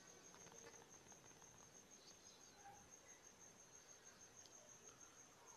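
Near silence: room tone with a faint, steady high-pitched tone.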